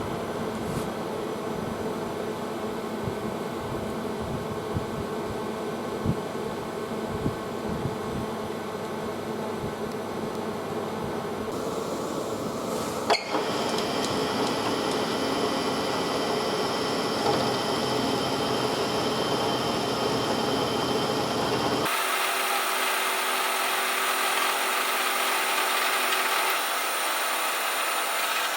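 Lathe machining a stainless steel bar: a steady mechanical running sound with a high, steady whine of cutting. There is a sharp click about halfway through, and about three-quarters of the way through the sound changes abruptly, brighter and without its low rumble.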